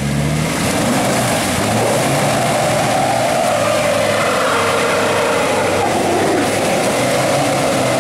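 Mazda BT-50 ute's engine revving hard as it spins its wheels in a muddy rut. The note climbs over the first few seconds and sinks again near the end, over a steady hiss.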